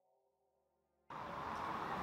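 The faint tail of a held ambient music tone dies into near silence, then about a second in the steady noise of a city street cuts in abruptly: a dense traffic hiss.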